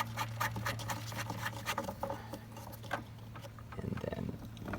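Small clicks and scrapes as a plastic cover is worked loose from the pool robot's power cord coupler with needle-nose pliers, over a steady low electrical hum. A sharp snap comes right at the end.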